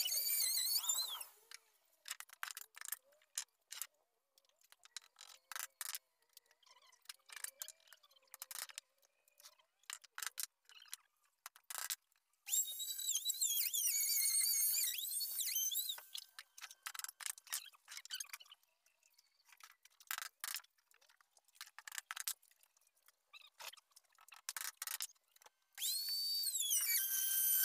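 Handheld trim router cutting grooves into a wooden door panel, heard faint and thin, broken into short ticks and crackles. Two stretches of warbling, high-pitched squeal come through, one around the middle and one near the end.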